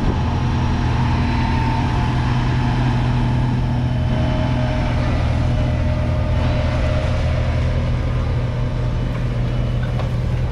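Kubota M7-153's 6.1-litre four-cylinder diesel engine running at a steady speed, a constant low drone with no change in revs.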